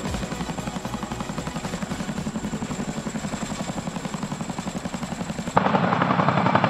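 Boeing CH-47 Chinook tandem-rotor helicopter's rotor blades beating in a fast, steady rhythm. About five and a half seconds in the sound jumps to a louder, closer rotor beat.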